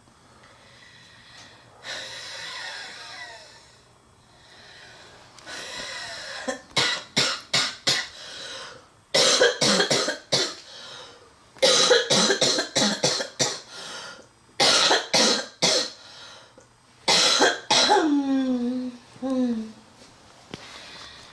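A girl's deep, chesty coughing fit, in five clusters of rapid coughs with breaths drawn in between. A few strained, wheezy sounds falling in pitch follow the last cluster. The uploader presents it as the sound of congested lungs.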